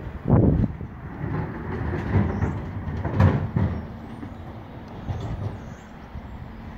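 A refuse lorry's engine running at a distance, a steady low hum in the street. Loud low thumps about half a second in and again about three seconds in stand out above it.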